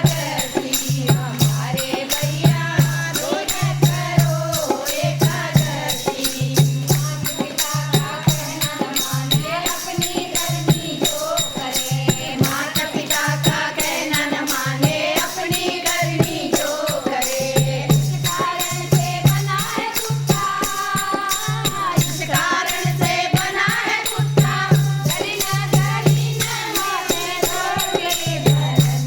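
Group of voices singing a Hindu devotional bhajan (kirtan) to a wavering melody, over a deep drum beating about once a second and steady jingling, rattling percussion.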